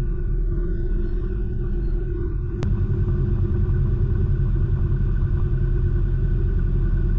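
Electric belt sander running steadily as it grinds a bevel along the edge of an old steel slasher blade, with a short click about two and a half seconds in after which it is a little louder.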